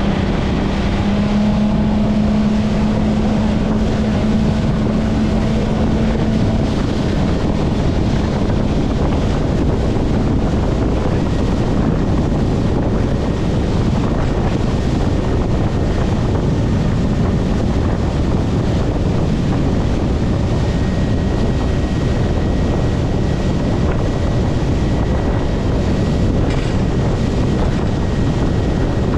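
Boat engine running under way, a steady low hum under loud, constant wind buffeting the microphone.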